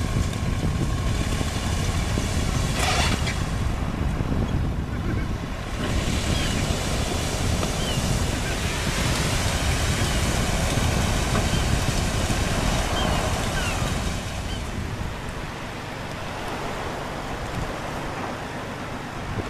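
Wind rumbling on the microphone over a steady wash of small waves on a shingle beach; the rumble eases about fifteen seconds in.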